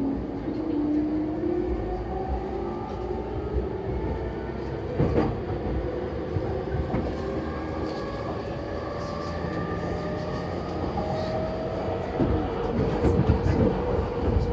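JR East E231 series electric train heard from inside the car while accelerating: the motor and inverter whine climbs slowly in pitch as speed builds, over wheel-on-rail running noise. A couple of sharp knocks come in the middle, and a run of wheel thumps over rail joints near the end.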